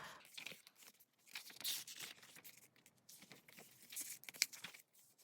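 Paper pages of an album photobook being turned by hand: irregular soft rustles and swishes, with a sharper snap of a page about four seconds in.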